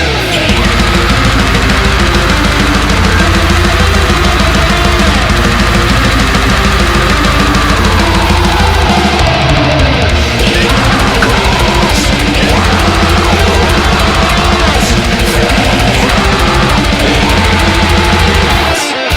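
Loud heavy rock music with distorted guitars and a driving drum beat; it drops out near the end.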